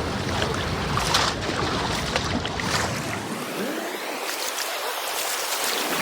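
Strong ocean surf breaking and washing up the beach, a steady rushing hiss with fizzing bursts of foam. Low wind rumble on the microphone drops away a little past halfway.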